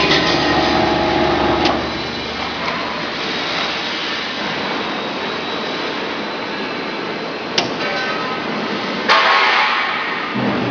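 Vacuum membrane press running in its pressing cycle: a humming tone that stops about two seconds in, then a steady rushing machine noise. Near the end come two sharp clicks a second and a half apart, the second followed by a brief louder rush.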